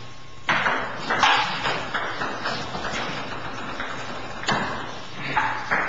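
Table-tennis ball being struck by paddles and bouncing on the table in a rally: two sharp hits, a run of lighter ticks, then more sharp hits near the end, each with a short echo.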